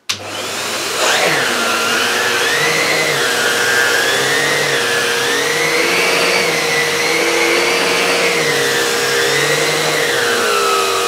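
Numatic Henry Xtra vacuum cleaner switched on, its motor spinning up within about a second and then running steadily while the air-driven Airobrush turbo brush is pushed back and forth over carpet. A whistling whine rises and falls with the strokes as the brush slows a little on the carpet. Near the end it is switched off and the whine falls away.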